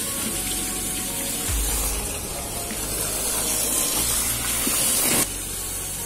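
Water running from a garden hose into a partly filled old fridge-box fish tank, a steady splashing gush. The sound drops abruptly in level about five seconds in.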